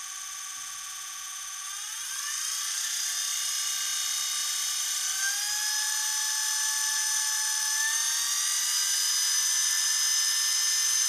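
Vacuum cleaner universal motor running on DC with a steady high whine. Its pitch rises as it speeds up, about two seconds in and again about five seconds in, and it grows a little louder.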